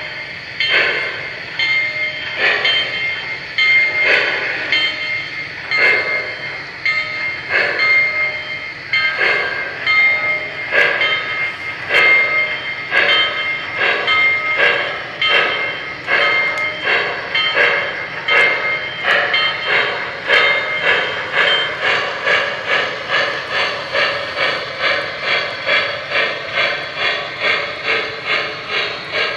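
Lionel Legacy model Nickel Plate Road 2-8-2 Mikado steam locomotive chuffing through its onboard sound system over the rolling noise of the train on the track. The chuffs come quicker and quicker, from about one every second and a half to about two a second, as the locomotive picks up speed.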